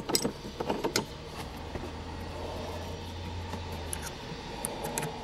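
A few sharp metallic clicks and taps in the first second, from a metal shifter knob being worked onto the shift lever, then a faint steady low hum that stops about four seconds in.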